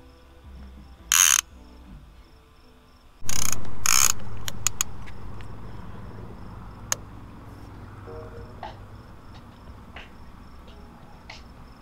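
Night insects chirping in a steady pulsing trill. A brief rustle comes about a second in, then a louder knock and rustling about three seconds in as a fishing rod is lifted out of its holder and handled, followed by a few sharp clicks.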